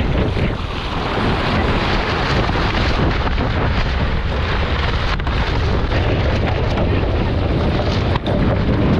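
Strong wind buffeting the microphone aboard a Soling keelboat sailing in gusty winds, with a steady rushing noise and a brief dip about eight seconds in.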